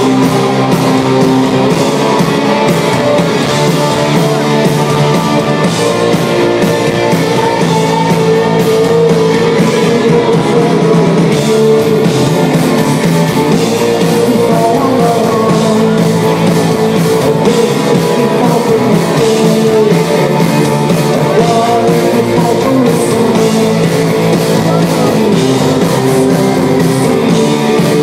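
Live heavy rock band playing loudly and steadily: electric guitars and drums, with a man singing into the microphone, heard from within the audience.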